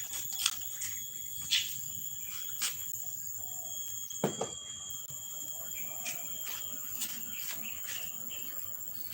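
Steady high-pitched insect chirring, in the manner of crickets, with scattered soft clicks and taps and one brief low sound about four seconds in.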